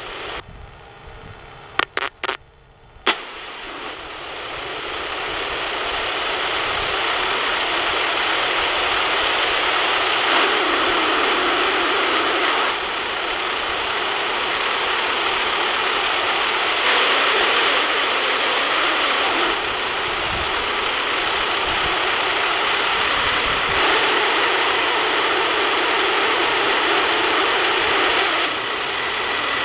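Airbus A318 jet engines spooling up to takeoff power as the airliner rolls down the runway: a broad engine noise that rises over several seconds and then holds loud and steady. A few sharp clicks are heard about two to three seconds in.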